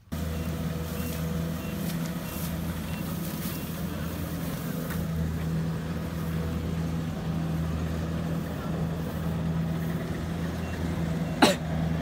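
Combine harvester's engine running steadily as it harvests rice, a constant low hum. A single sharp click comes near the end.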